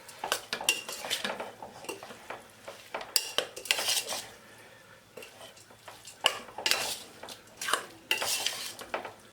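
A spoon scraping and clattering against a bowl as shredded chicken is stirred into chutney. The strokes come in irregular clusters with a quieter gap midway.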